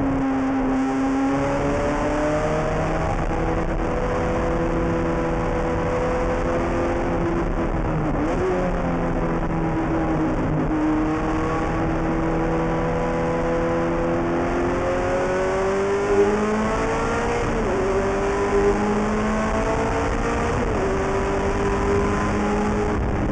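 Ferrari F430 GT race car's V8 engine heard from inside the cockpit while driving on track, its pitch rising and falling with the throttle. The pitch drops sharply at gear changes about eight, seventeen and twenty seconds in.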